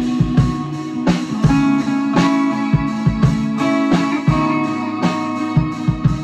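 Improvised ambient jam on electric guitar and drum kit, with kick-drum beats about every half second under ringing guitar, and a trumpet joining with held notes in the second half.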